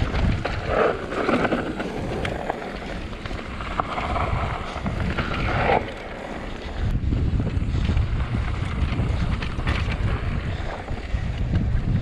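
Wind buffeting the microphone and mountain bike tyres rolling over a loose, dusty dirt trail at descending speed, a steady rumble with swishes of tyres sliding through the dirt and small rattling clicks from the bike.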